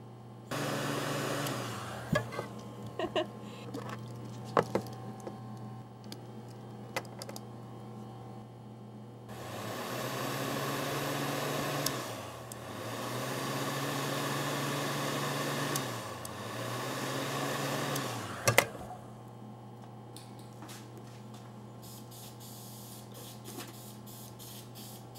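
Handheld hot-air blower switched on and off four times, its fan rising in pitch as it spins up and falling as it runs down. Clicks and knocks come between the runs, with a loud knock near the end of the last run, all over a steady electrical hum.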